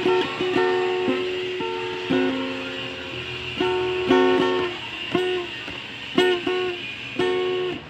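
Instrumental music of plucked-string notes, with no singing, played through the amplifier's speaker as it is tested after repair.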